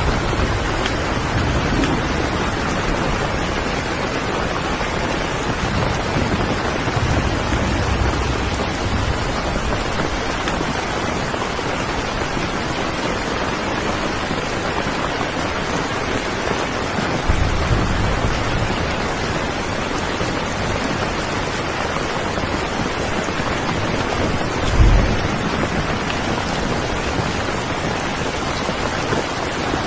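Steady heavy rain, an even hiss of falling water, with a few low thunder rumbles, the strongest about 25 seconds in.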